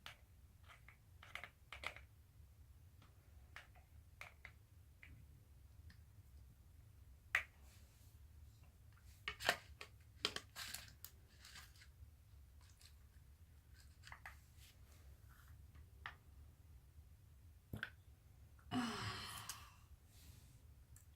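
Scattered small clicks and taps from hands handling slime-making supplies, with a brief rustling noise near the end.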